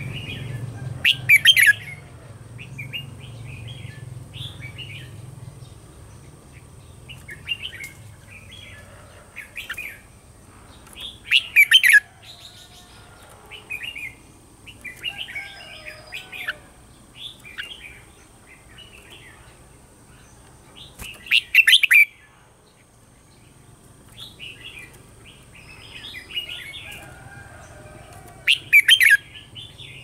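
Red-whiskered bulbuls singing: four loud bursts of song, roughly every eight to ten seconds, with softer chirping phrases in between.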